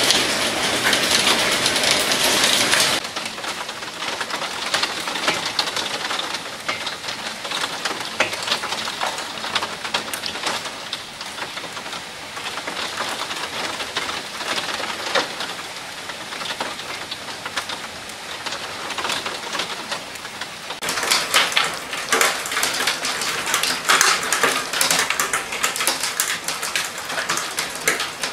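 Heavy thunderstorm rain falling, a dense spatter of drops hitting surfaces. The sound drops abruptly to a quieter downpour about three seconds in and turns loud again a little after twenty seconds.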